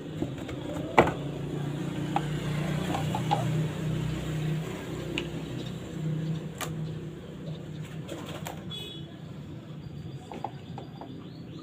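Several sharp clicks and knocks of a boxed audio mixer and its packaging being handled, the loudest about a second in. A low cooing, like a dove's, runs underneath.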